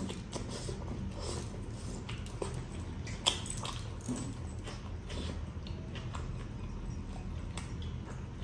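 A man chewing a mouthful of rice and curry eaten by hand, with a run of small wet mouth clicks and smacks and one sharper click about three seconds in.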